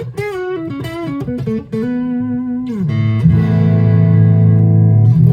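Westone Concord II electric guitar through a Roland Cube 30 combo amp on a crunchy overdriven tone. A quick single-note lick with string bends and vibrato leads into a held note that slides down, then a loud chord is struck about three seconds in and left ringing.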